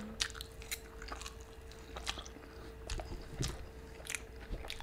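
A person chewing a mouthful of cheese-sauce-covered fries close to the microphone, with scattered soft wet clicks and light crunches.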